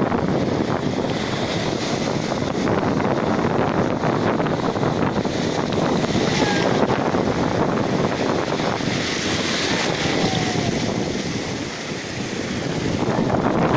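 Sea surf breaking and washing in over sand and rocks, with wind buffeting the microphone.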